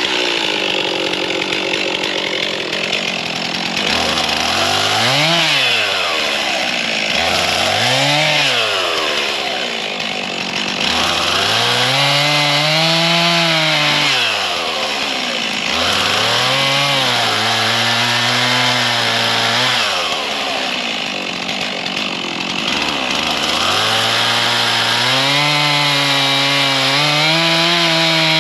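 Stihl two-stroke chainsaw cutting firewood, its engine revving up and down over and over, with stretches where the pitch sags and holds lower as the chain bites into the wood.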